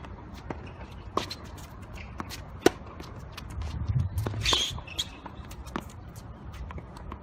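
Tennis ball sounds on a court: scattered bounces and knocks, with one sharp crack a little over two and a half seconds in, and shoes scuffing and shuffling around the middle.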